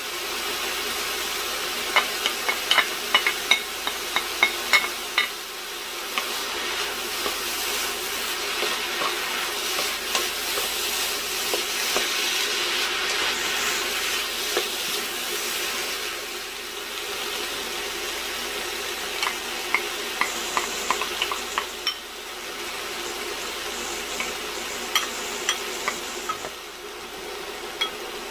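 Ground chicken and diced onion sizzling in a frying pan as they are stirred with a wooden spoon. There are bursts of quick taps and scrapes of the spoon against the pan a few seconds in, again past the middle, and near the end.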